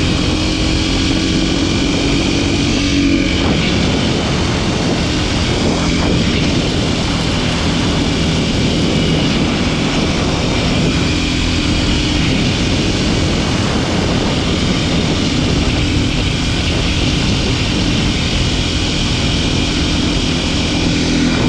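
Kawasaki KLX300SM supermoto's single-cylinder four-stroke engine running at a steady cruise, with wind rushing past; the engine note shifts briefly about three seconds in.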